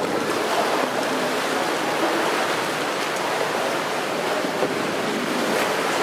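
Steady rushing and lapping of water in an indoor pool, with light splashing near the end as a whitewater kayak tips over into a roll.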